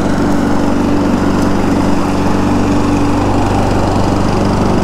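Self-propelled petrol walk-behind lawn mower, its engine running at a steady speed while it is mowing the lawn.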